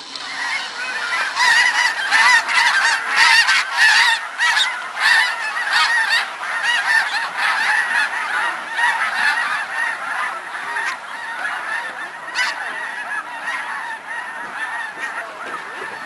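A large flock of snow geese calling, a dense chorus of overlapping honks. It is loudest in the first several seconds and thins out toward the end.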